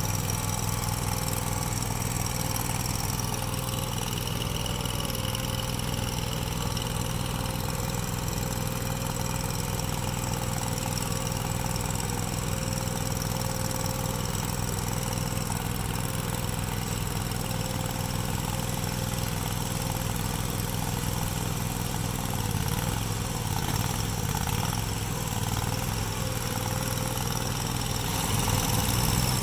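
An engine running steadily, with no change in speed, a little louder near the end.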